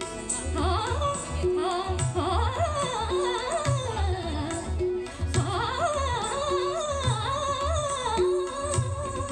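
Live Marathi light-classical song: a woman sings a winding, ornamented melody over a steady tabla beat, with flute, acoustic guitar and keyboard accompaniment. A short accompanying note repeats about every second and a half.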